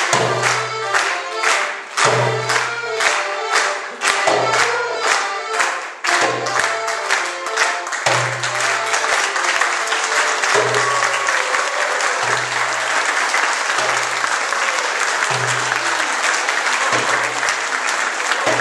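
Music with a steady beat and a regular low pulse; from about a third of the way in, audience applause swells and carries on over the music.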